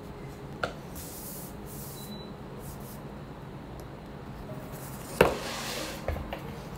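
Paper pages of a large hardback cookbook being turned: a sharp flick about five seconds in, followed by a short rustling swish and a couple of light taps. A single faint tick comes about half a second in.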